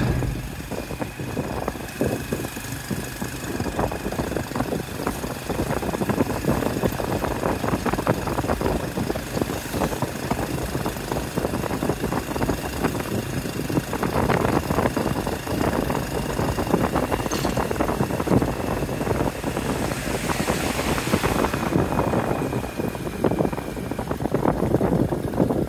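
Tuk-tuk's small engine running steadily as it drives along a dirt street, with the rumble of the ride.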